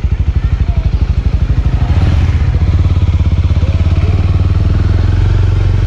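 Small Suzuki motorcycle engine heard from the saddle while riding slowly at low revs. It runs with an uneven pulsing for about the first two seconds, then settles into steadier running.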